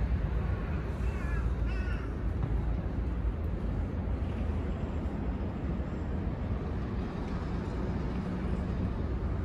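A crow cawing, a few short caws about a second in, over a steady low background rumble.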